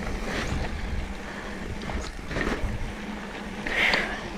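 Mountain bike ride heard through an action camera's microphone: steady wind rumble with scattered knocks and rattles from the bike rolling over the trail, and a louder hiss near the end.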